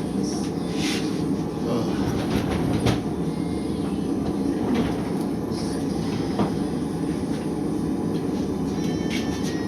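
Steady low rumbling noise with a few light clicks and knocks scattered through it.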